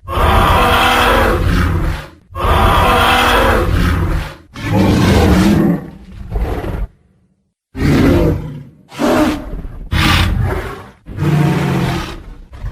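Tyrannosaurus rex roar sound effects: a string of loud roars, each one to two seconds long with short gaps between, and a brief silence about seven seconds in.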